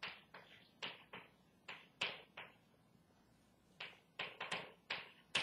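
Chalk on a blackboard during writing: quick, irregular taps and short scratchy strokes in bursts, with a pause of about a second in the middle and the sharpest tap near the end.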